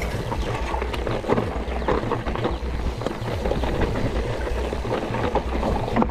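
Mountain bike clattering over rocky dry singletrack on a descent: many sharp knocks and rattles from the bike over a continuous low rumble.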